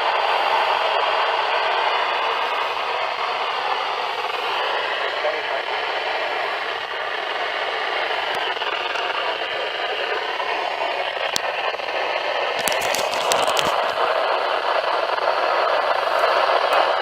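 Weather radio receiver hissing with heavy static, a weak broadcast voice barely showing beneath it. A brief burst of sharp crackling clicks comes about thirteen seconds in.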